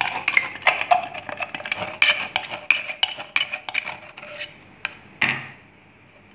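Chopsticks scraping and tapping against a tin can of sweetened condensed milk as it is emptied into a plastic bowl: a rapid run of clicks and light knocks, with one louder knock about five seconds in.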